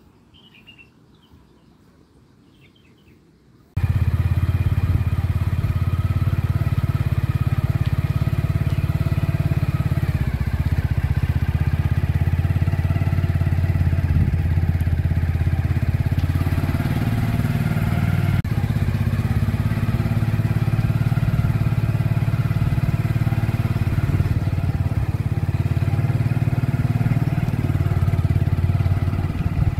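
A few faint bird chirps over near-quiet. About four seconds in, a motorcycle's engine cuts in suddenly and runs steadily and loudly as the bike rides along.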